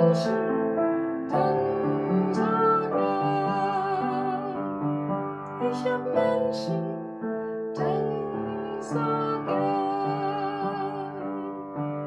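Upright piano playing slow chords, with a woman singing a gentle melody over it.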